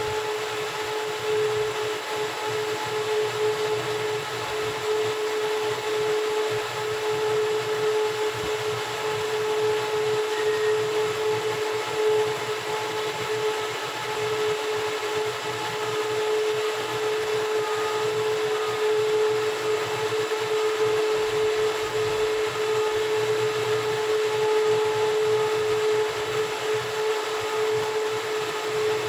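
Steady hum of a running machine, with a constant mid-pitched whine over a rushing noise that does not change.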